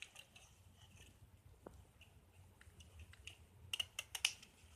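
Faint clicks and light rattling of plastic computer-keyboard parts being handled, with a short cluster of sharper clicks near the end.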